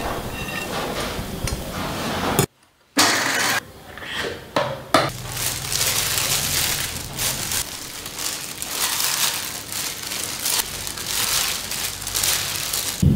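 Kitchen food-prep sounds in short cuts: a knife cutting long beans against a plate, raw shrimp tipped from a metal strainer into a glass dish with a few sharp clinks, then a gloved hand mixing the wet salad in the glass dish, rustling and scraping with small clinks of glass.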